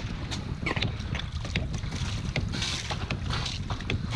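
Wind buffeting the microphone over choppy water slapping and splashing against a kayak hull, with scattered knocks and clicks of gear on the deck and a brief splash of spray about two and a half seconds in.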